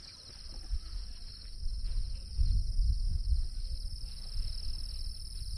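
Night insects chirping in a steady, fast, even trill, with a fainter, higher-pitched insect hiss alongside. A low rumble rises under them in the middle.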